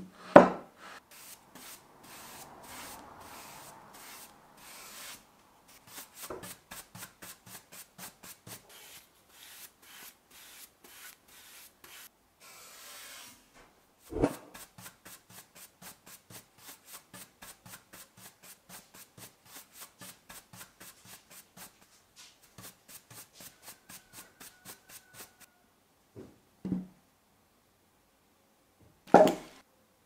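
Stiff paintbrush scrubbed back and forth over charred wood while brushing on a dark finish: a scratchy rub in even strokes, about two to three a second. Four sharp wooden knocks break it, the loudest right at the start and two close together near the end.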